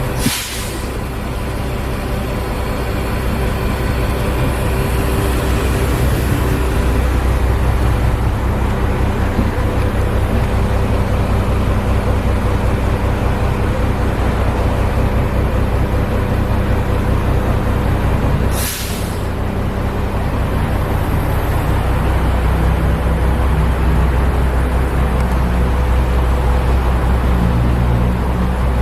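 Heavy diesel engine of the lifting machinery running steadily under load, building up over the first several seconds. Two brief hisses come through, one just after the start and another about two-thirds of the way through.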